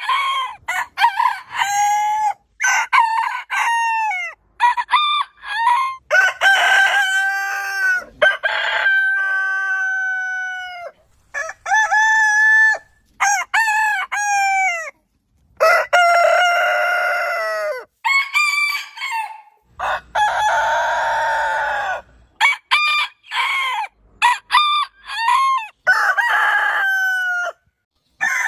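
Roosters crowing, one crow after another in a long run of separate calls with sudden cuts between them. The crows differ in pitch and length, and one near the middle is harsher and rougher.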